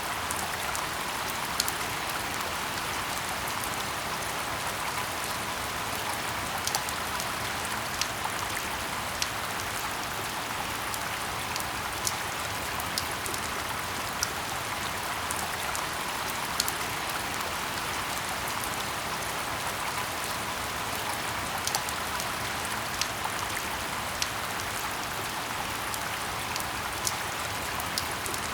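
Steady rain falling in a forest: an even hiss of rain, with single louder drop taps scattered through it about once a second.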